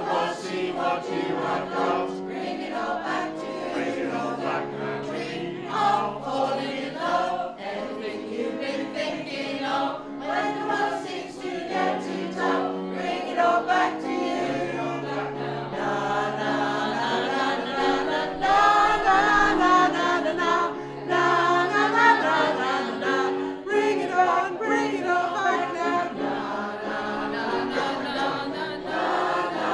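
A mixed group of adult men and women singing a song together, choir-style.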